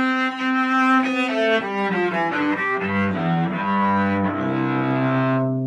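Cello played with the bow: a long held note, a short passage of changing notes in the middle, then a long held low note.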